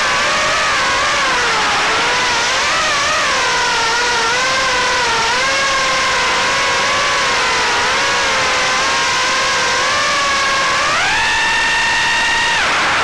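Brushless 1105 5500kV motors of a 3-inch FPV quadcopter, whining as they spin the props. The pitch wavers up and down with throttle, then rises sharply near the end and holds high for a second or so as the quad punches up toward the sky, before dropping.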